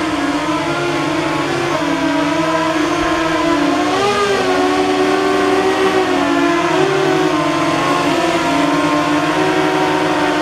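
Motors and propellers of a homemade radio-controlled flying saucer running as it hovers, a steady whine of several overlapping tones. The pitch wavers up and down as the throttle is adjusted to hold it aloft.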